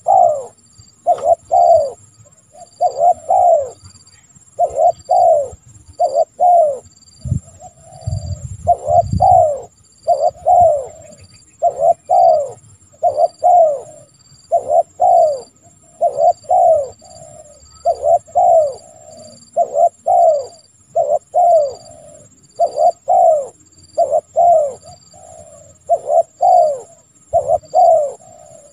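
Spotted dove (tekukur) cooing over and over, each phrase a short falling coo, repeating about every one and a half seconds, with a faint steady high tone behind it.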